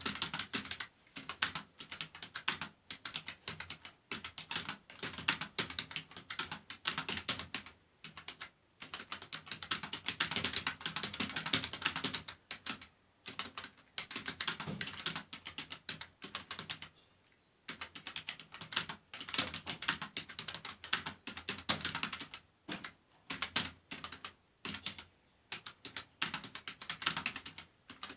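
Fast typing on a computer keyboard in a typing test, about 48 words per minute: rapid runs of key clicks broken by short pauses. A faint, steady high tone sits underneath.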